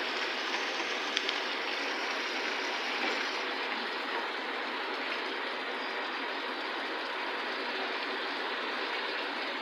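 Ground beef sizzling steadily as it fries in a frying pan, with a few light scrapes and taps of a plastic spatula stirring it, about a second in.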